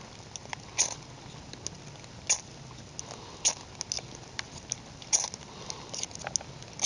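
Ferrocerium rod scraped repeatedly with a striker, a string of short, sharp scrapes at irregular intervals, throwing sparks onto a pile of smokeless gunpowder on wet birch bark that has not yet caught.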